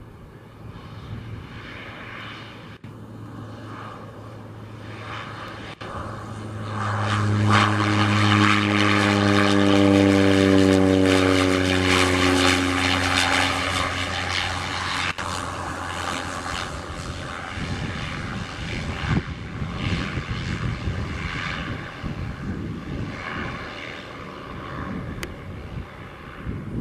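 Cessna 208 Caravan's PT6A turboprop and propeller droning as it comes in to land, growing louder to a peak about eight to twelve seconds in, the propeller tone sliding down in pitch as it passes close. Afterwards a steadier, lower-level engine noise as it rolls out on the runway.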